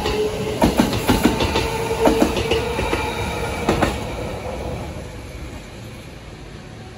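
Eight-car Kintetsu limited express, coupled 22000- and 22600-series sets, pulling away. Its wheels clack over the rail joints under a rumble and a steady tone. The clacks stop about four seconds in, and the rumble fades as the train recedes.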